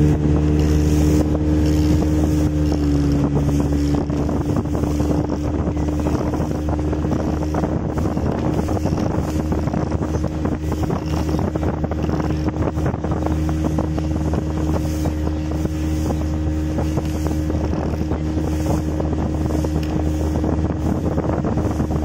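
Small motorboat's engine running steadily at cruising speed under way, holding one even pitch, with wind buffeting the microphone.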